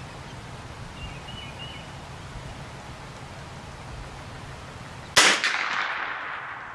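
A single shot from a Glenfield Model 60 .22 Long Rifle semi-automatic rifle firing Federal Black Pack ammunition: a sharp crack about five seconds in that echoes away over a second or so.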